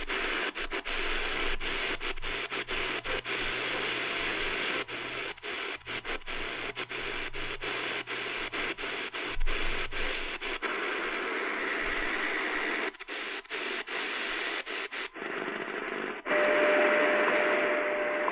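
Shortwave static hissing from the Tiemahun FS-089 portable radio's speaker as it is tuned slowly across the band, cutting out briefly again and again as the digital tuning steps. Near the end it settles on a station carrying a steady single tone, the WWV time-signal tone.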